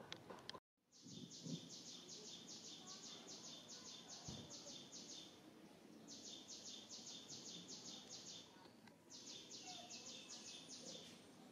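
Faint, high, pulsing insect call, about six pulses a second, in bouts of a few seconds with short pauses between, over quiet forest ambience. All sound drops out for a moment just after the start.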